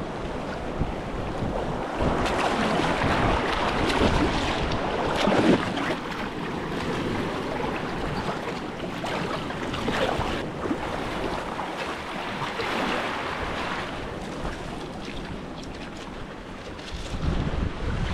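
Wind buffeting the microphone over waves washing on the shore, gusting louder a couple of seconds in.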